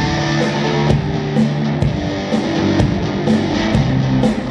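Live rock band playing an instrumental passage: strummed guitar over held low notes, with a steady beat of sharp percussive hits about twice a second.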